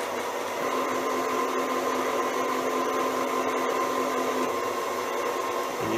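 Schaublin SV52 milling machine running, a steady motor and gearbox hum with a whine, and an extra steady tone that joins about half a second in and drops out about four and a half seconds in.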